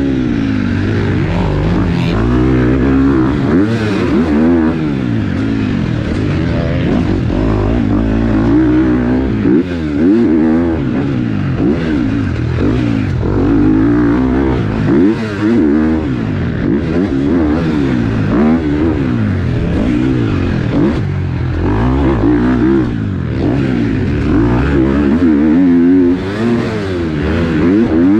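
Close onboard sound of a KTM four-stroke single-cylinder motocross bike ridden hard, its engine revving up and down again and again as the throttle is opened and chopped and gears are shifted, with a few brief sudden drops in the engine note.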